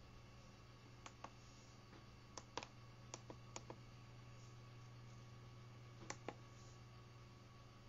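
Buttons on the keypad of an offline CNC controller being pressed one at a time: about five presses, each a pair of sharp clicks, over a low steady hum.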